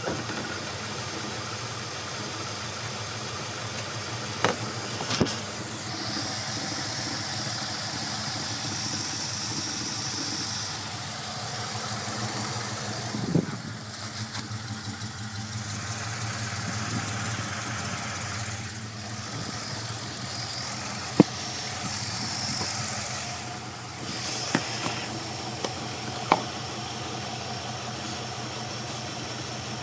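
5.7-litre Hemi V8 idling rough, a steady low running broken by a handful of sharp clicks at irregular moments.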